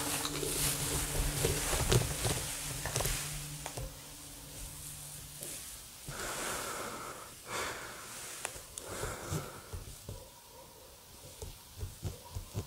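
Scattered clicks and rustles of someone moving through rubble in an empty house, with a few breathy noises. A low steady hum fades out about halfway through.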